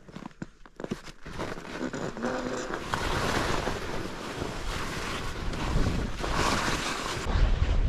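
Skis hissing over snow as a skier sets off downhill, with wind rushing over the microphone. It grows louder after a few light clicks in the first second, and the low wind buffeting gets heavier near the end.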